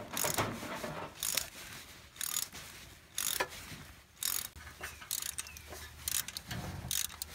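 Hand ratchet wrench clicking in short strokes, a burst every second or so, as exhaust bolts are worked loose.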